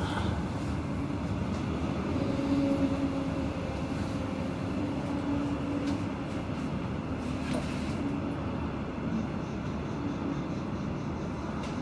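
Regional train running, heard from inside the passenger carriage: a steady rumble of wheels and running gear with a faint hum that comes and goes.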